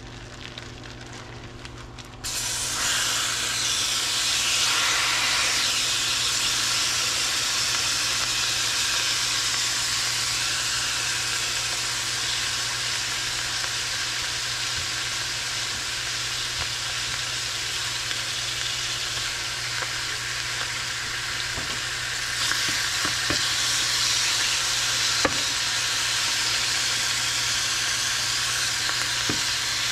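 Marinated bonito pieces frying in hot avocado oil in a stainless steel pan. The sizzle starts suddenly about two seconds in as the fish goes in, then runs steadily and grows a little louder again past twenty seconds, with a few light knocks.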